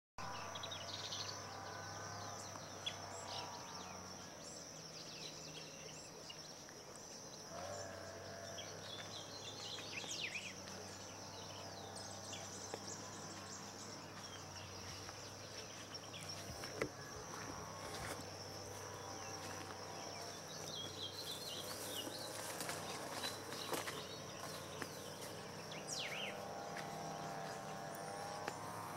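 Outdoor ambience of a steady high-pitched insect drone with scattered bird chirps over it, a faint low hum and a few light clicks.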